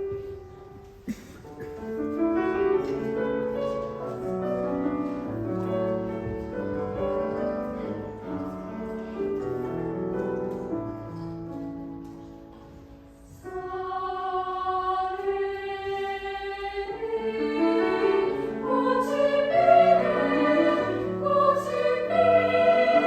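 A choir sings a classical piece with piano accompaniment. After a brief lull about halfway through, the voices come back fuller and louder, with sustained notes.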